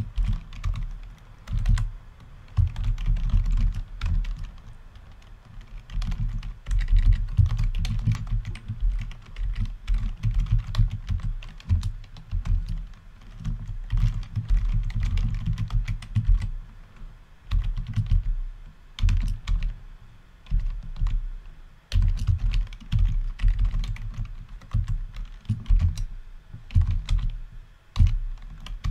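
Typing on a computer keyboard: quick runs of keystroke clicks, each with a dull low thud, broken by a few pauses of a second or two.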